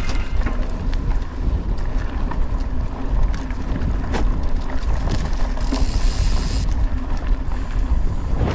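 Cannondale Scalpel Carbon 2 mountain bike riding over a gravel trail: tyres crunching on gravel, the rear hub's ratchet ticking, and wind rumble on the camera's microphone. Near the six-second mark there is a brief burst of hiss.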